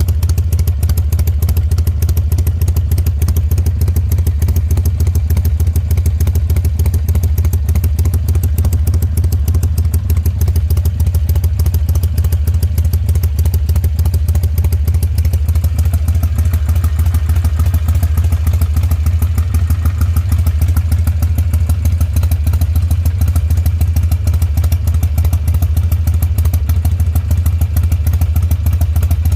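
Harley-Davidson V-twin idling steadily with its uneven, loping 'horse-hoof' beat. The engine's fuelling is remapped with a Vance & Hines FP3 Fuel Pak tuner.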